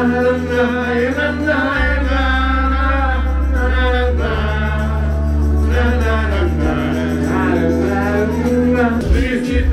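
A man singing karaoke into a microphone over a recorded backing track with held bass notes that change every couple of seconds.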